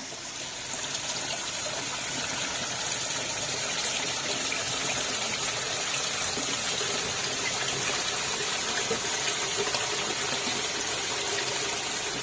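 Small forest stream running over rocks in little cascades: a steady rush of water.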